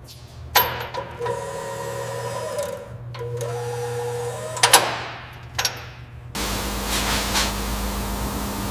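A small electric motor whirring steadily, with a few sharp clicks, then cut off abruptly about six seconds in, giving way to a steady noisy hum.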